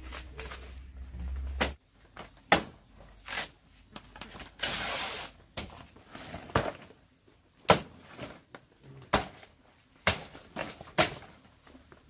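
A low hum cuts off about two seconds in. It is followed by a series of irregular sharp knocks and clatters, as of objects being handled and set down, with a brief hiss near the middle.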